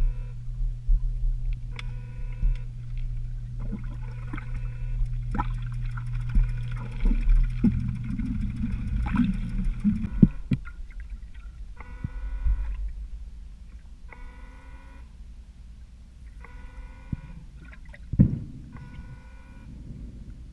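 Underwater sound: a steady low hum with scattered clicks for about the first half, then quieter water sound with a series of short pitched calls recurring every two to three seconds.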